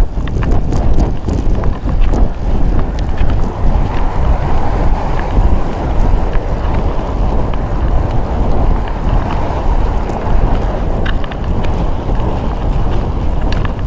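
Wind rushing over a bike-mounted camera's microphone as a road bicycle is ridden at speed: a loud, steady rumble, with a few short clicks near the end.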